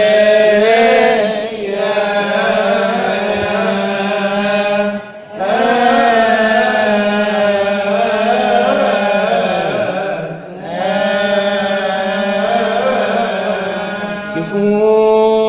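A solo male voice chanting a long melismatic Coptic liturgical melody, with wavering held notes and two short breaths about five and ten seconds in, over a steady low drone.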